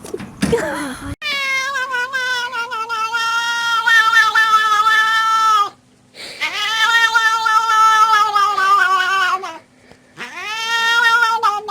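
A cat yowling: three long drawn-out calls of several seconds each, the pitch sagging at the end of each, after a brief scuffling noise at the start.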